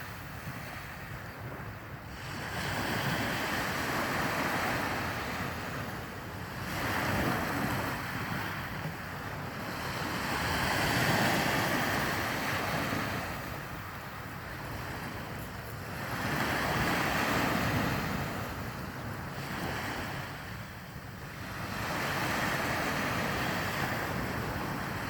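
Sea waves breaking and washing on the shore, the surf rising and falling every few seconds, with wind rumbling on the microphone.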